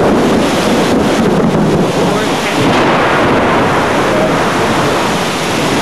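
Thunderstorm: heavy rain falling with thunder rumbling.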